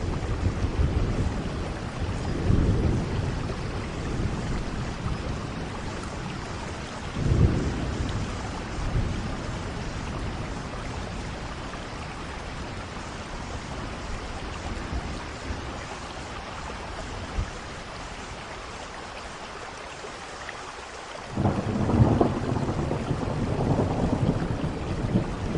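Steady rain falling through a thunderstorm, with rolling thunder. There is a sharp clap about seven seconds in, and a loud, long rumble of thunder sets in near the end.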